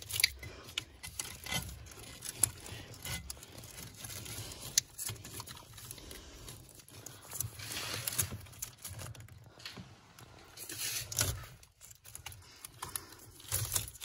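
Hands pulling a wiring harness and its plastic clips loose under a car's dashboard: rustling and tearing noises with scattered sharp clicks, heaviest about halfway through and again near the end.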